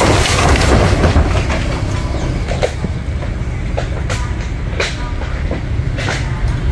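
An engine running at a low, uneven idle, with a few sharp cracks and knocks now and then.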